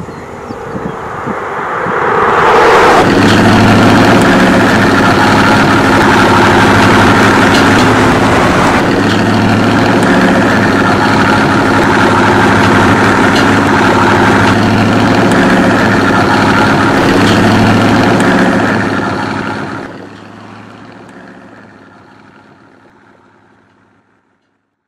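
A motor running loudly and steadily with a low hum. It builds up over the first three seconds, holds, then drops away about twenty seconds in and fades out.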